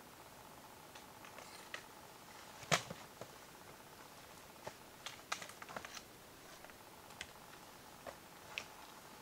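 Scattered knocks and clicks of a hiker's boots on a wooden log ladder, irregular steps with the sharpest knock about three seconds in and a quick cluster a little past halfway, over a faint steady high tone.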